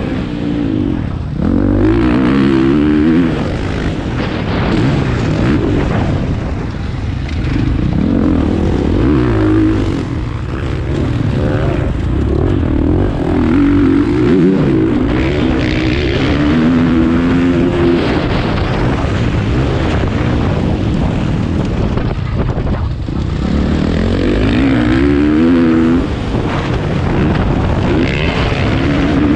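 Dirt bike engine heard from onboard while racing, revving up and falling back again and again, with a hiss of wind and track noise underneath.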